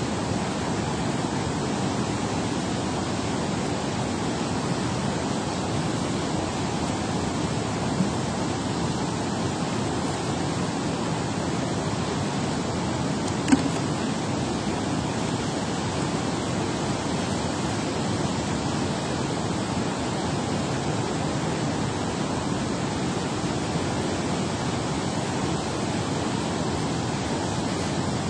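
Steady rushing of water pouring out below a dam spillway, with a couple of small clicks partway through.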